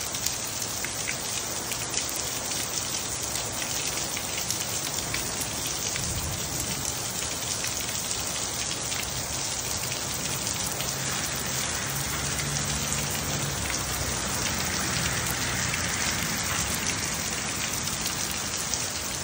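Heavy rain pouring steadily onto lawns, pavement and roofs: an even hiss full of tiny drop ticks.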